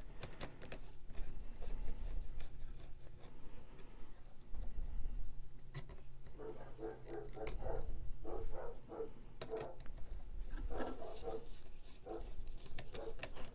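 Wires being handled and pushed into place behind a 3D printer's control board: rustling and light clicks. In the second half there are two runs of short, pitched squeaky sounds.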